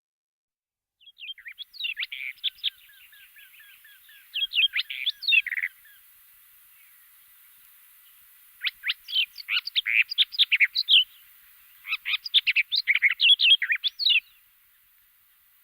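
Small birds chirping in three bouts of quick, sharp notes, starting about a second in, again around nine seconds and around twelve seconds, with faint rapid peeping in between.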